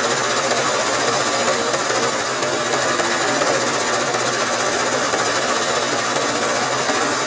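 Sewing machine running steadily at speed, its needle stitching rapidly without pause, as a hooped cloth is guided by hand for free-motion embroidery.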